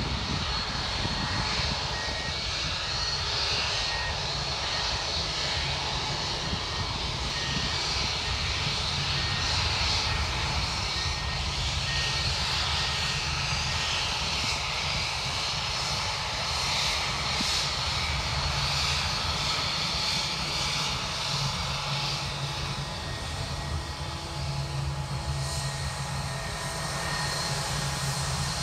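Airbus A320's twin jet engines running at low taxi power as the airliner taxis past, a steady high whine over a low rumble.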